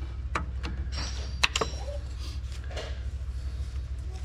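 A few sharp metal clicks and taps from hand tools working on the tractor's shift linkage. The loudest comes about a second and a half in, with a brief ringing. A steady low hum runs underneath.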